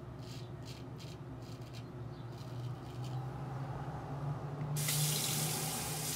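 A few faint short scrapes of a straight razor over lathered stubble. Then, about five seconds in, a tap runs hard into the sink for a second and a half and cuts off sharply.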